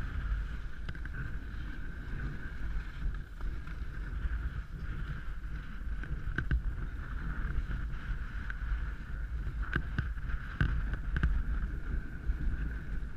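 Wind buffeting a helmet-mounted action camera's microphone: a continuous low rumble with a steady higher hiss above it. A few sharp clicks come around the middle and again after about ten seconds, as skis and poles strike hard, wind-packed snow.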